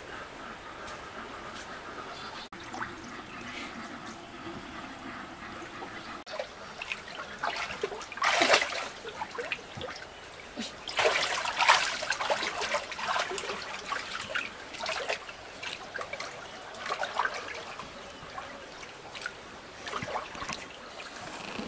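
Water trickling and splashing, with irregular louder splashes about eight seconds in and again from about eleven to thirteen seconds in.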